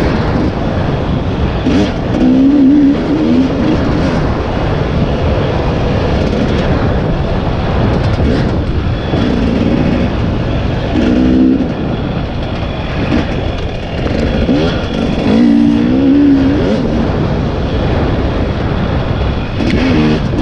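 2020 KTM 300 EXC two-stroke dirt bike engine being ridden, revving up and falling back in several bursts over a constant noisy background.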